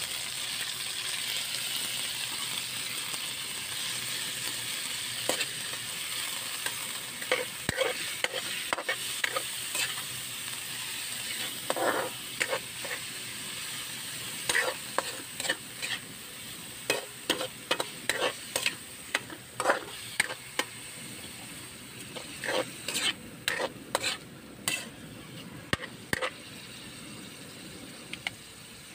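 Chopped chicken breast frying in olive oil in a metal wok: a steady sizzle that slowly eases. From about a quarter of the way in, a metal spatula scrapes and knocks against the pan at an irregular pace, more often toward the end, as the meat is stirred toward light brown.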